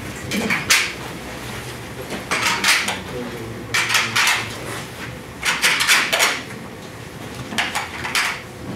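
Tabletop name placards being picked up and stacked, clattering against each other in short bursts of knocks about every one and a half seconds.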